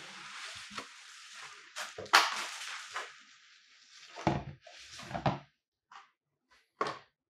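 Fotoplus RL-18 Max ring light being handled: a rustling scrape as it slides out of its foam-lined fabric carry bag, with a sharp knock about two seconds in, then two thumps as it is set down on a table, followed by a few light taps.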